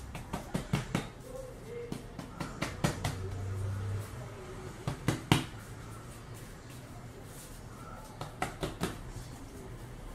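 Hands pressing, patting and folding bread dough on a floured table: soft slaps and taps on the tabletop, coming in short clusters of a few strikes each.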